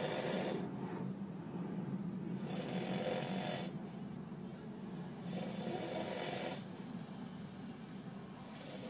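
A man snoring in his sleep, one long snore roughly every three seconds, over a steady low hum.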